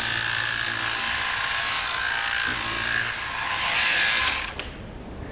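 Sheep-shearing machine handpiece running while it shears wool from a sheep's flank: a steady buzzing hum with a bright hiss. The sound drops away sharply about four seconds in.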